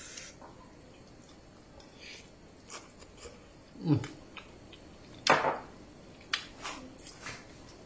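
A man tasting kuey teow theng (flat rice noodle soup) from a spoon: slurping and chewing. There is a brief falling voice sound about four seconds in, the loudest slurp just after five seconds, and a few light clicks near the end.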